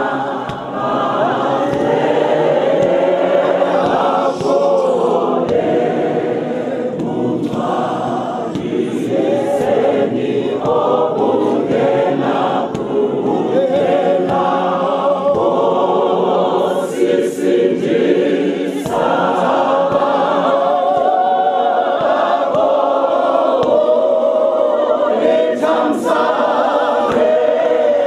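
Church congregation singing a hymn together in many voices, in long phrases with short breaths between them.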